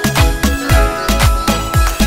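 Background music with a steady kick-drum beat, about three to four strokes a second, under held keyboard-like tones.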